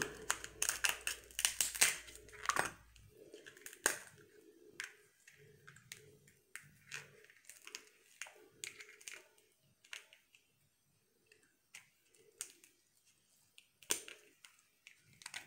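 Snow crab leg shells being cracked and snapped apart by hand: a run of sharp cracks and clicks, close together for the first few seconds, then scattered.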